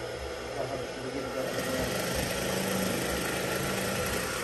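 Industrial sewing machine stitching fabric, driven by the motor under its table; the run grows louder about half a second in and cuts off near the end.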